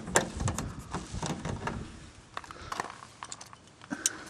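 Scattered sharp clicks and taps of an ABS plastic wing strut fairing being pressed and handled on the metal strut, close together in the first second or so and thinning out to a few isolated clicks later.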